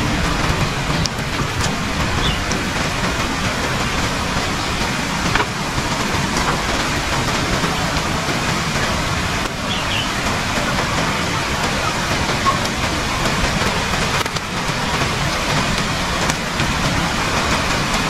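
Steady rush of falling water, a continuous even roar without a break.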